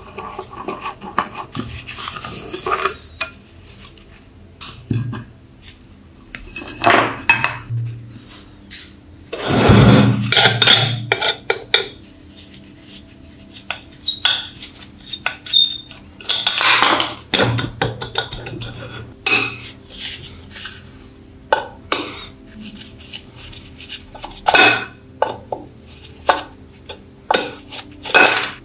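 Irregular metal-on-metal clinks, scrapes and knocks as a rusty antique lamp is taken apart by hand: a thumb screw worked loose and a screwdriver turning out screws from a corroded plate, with louder bursts of clatter now and then.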